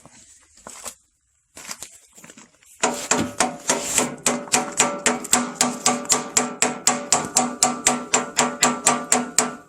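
Hammer blows on metal, tapping the tight-fitting trunnion bushing piece into place on a Farmall Cub's hitch: after a few quieter knocks, steady ringing strikes about three a second start about three seconds in and keep going.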